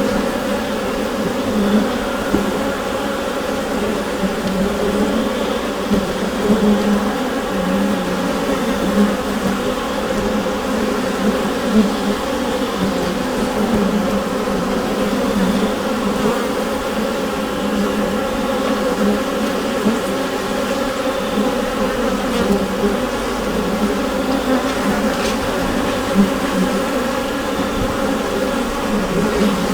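Honeybee colony buzzing inside the hive: a dense, steady hum of many wingbeats, swelling and dipping slightly.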